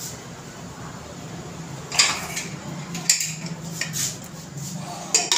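Metal kitchenware clattering: single sharp clinks about two, three and four seconds in, then a quick run of clinks near the end, over a steady low hum.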